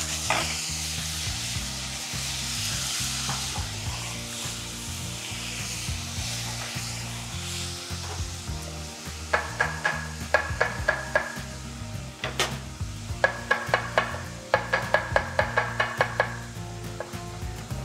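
Chopped onion and peppers sizzling in a stainless steel saucepan over a gas flame as they begin to soften. From about nine seconds in, a chef's knife slices garlic on a cutting board in several quick runs of taps, about seven a second, with one harder knock in between.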